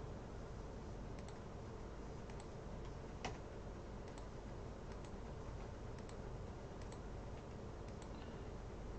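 Sparse, faint clicks of a computer keyboard and mouse, about seven spread unevenly over several seconds, with one more distinct click about a third of the way in. They sit over a steady low background hum and hiss.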